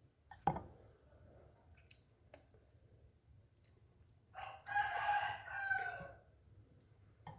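A sharp click about half a second in, then a rooster crows once, a call of under two seconds with a short break in the middle, about four and a half seconds in.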